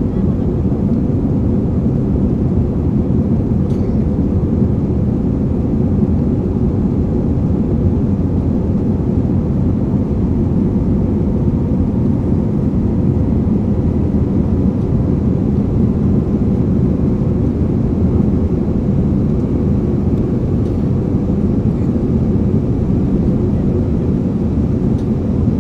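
Airplane taking off: a steady, loud, low rumble of engines and airflow that holds even throughout.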